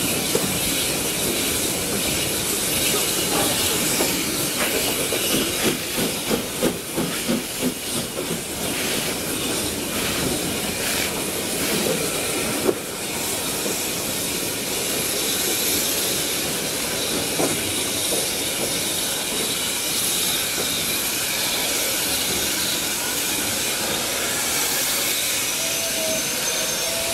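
Steam train of a Hunslet Austerity saddle tank and Mk1 carriages drawing slowly into a station platform. A steady hiss of steam runs over the sound of the wheels on the rails, with a short run of rhythmic pulses a few seconds in and a single sharp click about halfway.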